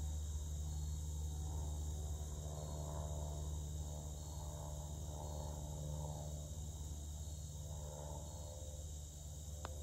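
Steady outdoor ambience of chirring insects over a low, steady rumble, then a single light click near the end as a putter strikes a golf ball.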